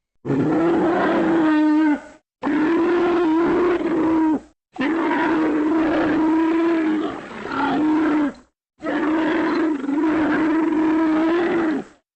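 Sound-effect call made for Embolotherium, an extinct brontothere: four long, low animal calls, each held at a steady pitch with a slight wobble and cut off by a short silence. The third call is the longest.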